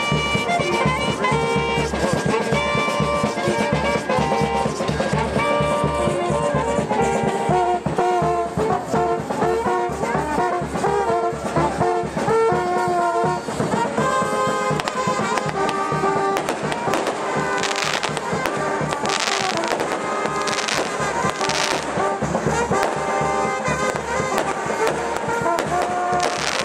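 A brass band playing held notes over a drum. In the second half fireworks go off, with a run of sharp bangs cutting through the music.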